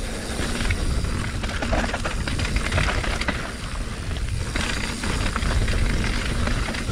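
Steel hardtail mountain bike riding over rough, wet trail: tyres hissing and crunching over rock and dirt, with constant clattering and rattling from the bike and a low rumble underneath.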